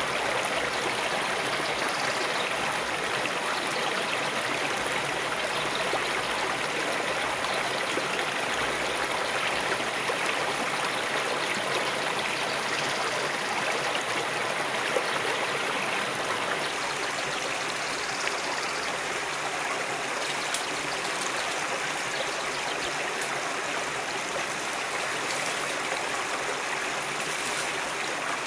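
A river flowing steadily, a constant rushing of water without a break.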